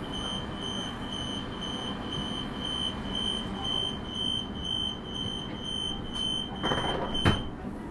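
Door-closing warning beeps on a Transperth Bombardier B-series electric train: a high beep repeated about two and a half times a second. Near the end comes a short hiss and a loud thud as the doors shut.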